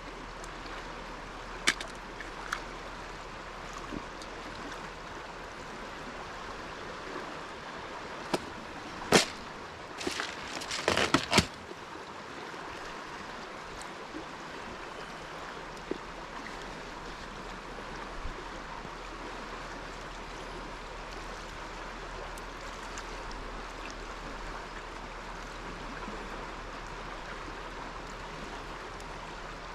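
River water running steadily, with a few sharp knocks and a short cluster of clattering knocks about nine to eleven seconds in.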